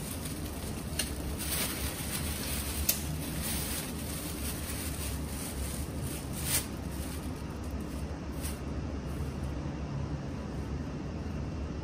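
Thin plastic shopping bag crinkling in short spurts as it is handled and wound around a handle, the loudest crackle about six and a half seconds in. Under it runs a steady low background rumble.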